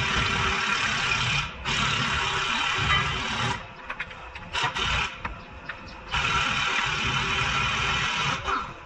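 Pneumatic air ratchet running in three hissing bursts of about two seconds each, with a few clicks in the pause between the second and third, as it works on a front lower control arm bolt.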